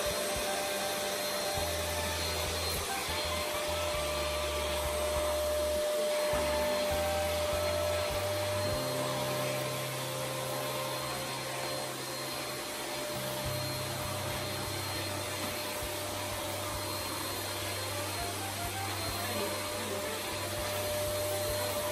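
Maxxmee 03198 corded vacuum cleaner running steadily, a continuous rush of suction with a steady motor whine; it is not so loud.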